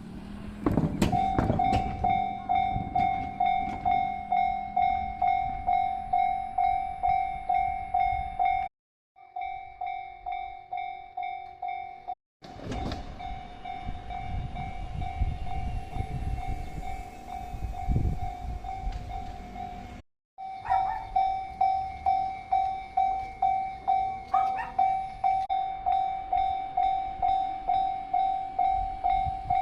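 Japanese railway level-crossing warning bell ringing a steady, evenly repeated ding about twice a second, breaking off for a moment three times. Through the middle stretch the low rumble of a 115-series electric train passing over the crossing runs under the bell.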